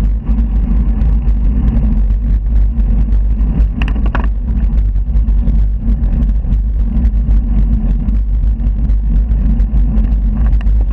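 Wind buffeting the microphone of a handlebar-mounted camera on a moving bicycle: a loud, steady low rumble with road and traffic noise mixed in, and a brief higher-pitched sound about four seconds in.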